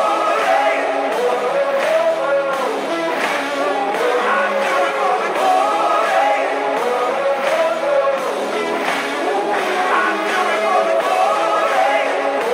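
Background pop-rock song with a singing voice.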